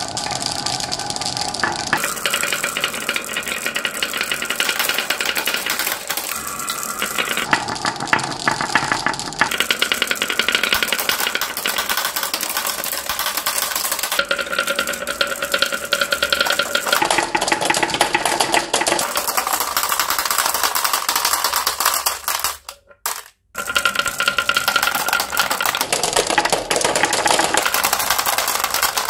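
Many glass marbles rolling and clattering down wooden wavy slope tracks, a dense run of clicks as they knock against the wood and each other. Near the end they drop clinking into a plastic basket.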